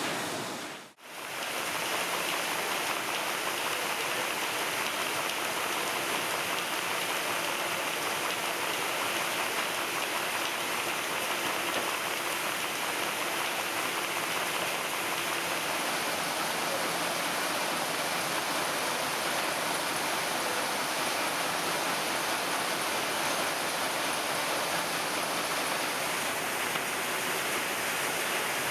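Steady machine noise of paper-folding and delivery machines running: an even hiss with no distinct rhythm, which drops out briefly about a second in.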